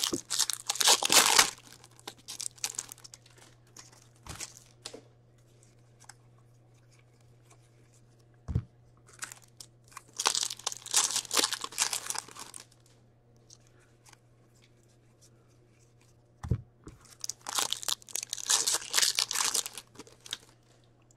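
Foil hockey card packs being torn open and crinkled, in three bursts of tearing with quieter stretches between. Two sharp single taps come in the quiet stretches.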